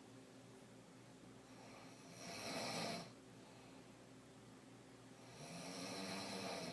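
A woman snoring while sleeping on her back: two snores, a short one about two seconds in and a longer one building from about five seconds in.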